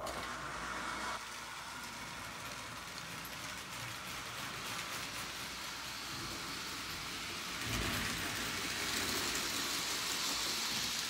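Prewar Lionel 225E electric toy steam locomotive pulling tinplate passenger cars around three-rail O-gauge track, its motor and wheels making a steady rattling run that starts suddenly. It grows louder about eight seconds in as the locomotive passes close by.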